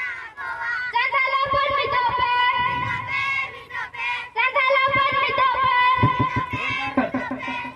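High-pitched voices singing a melodic song with a wavering pitch, joined by fast drum beats about one and a half seconds in and again around five seconds in.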